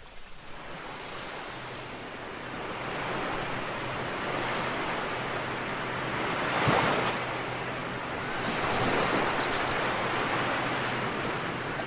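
Ocean surf: small waves breaking and washing up a sandy beach, a steady rush that swells loudest about seven seconds in and again around nine seconds.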